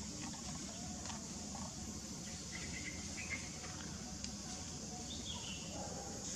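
Outdoor ambience: a steady high insect drone with a few faint, short chirps, about two and a half to three and a half seconds in and again about five seconds in.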